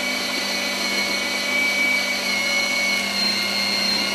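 Electric meat grinder (1500 W) running steadily while grinding pork into mince: an even motor hum with a high, constant whine.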